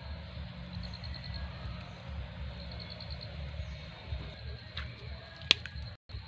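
Outdoor riverbank ambience: an uneven low rumble on the microphone with short trains of rapid, high-pitched chirps, three times. A sharp click about five and a half seconds in is the loudest sound.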